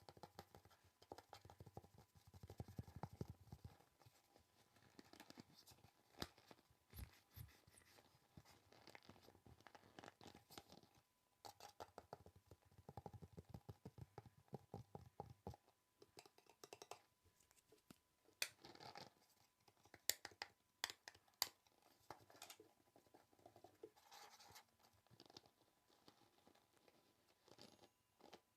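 Quiet, close-up ASMR tapping and scratching: soft irregular clicks and scratches, coming in quick flurries with a few sharper taps.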